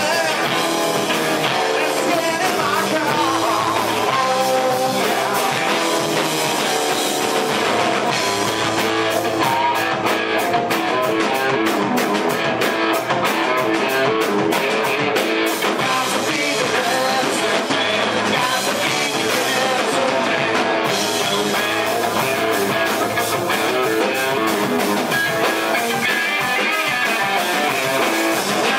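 A rock band playing live, with electric guitar and singing.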